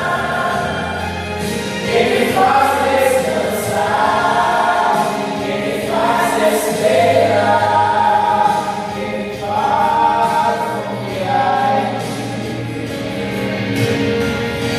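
A choir singing a gospel hymn with instrumental accompaniment. The sung phrases rise and fall over sustained bass notes.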